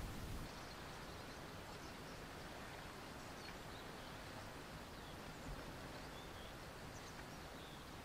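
Faint, steady open-air ambience with a few faint, brief bird chirps. A low rumble cuts off about half a second in.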